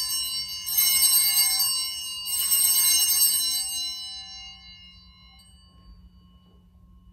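Altar bells (Sanctus bells) rung at the elevation of the chalice: a bright jangling chord of several bells, shaken again about a second in and again about two and a half seconds in, then ringing out and fading away.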